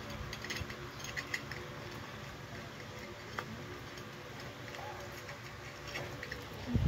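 Dog eating rice from a shallow metal pan, with scattered light clicks and ticks from the food and pan, over a steady low hum.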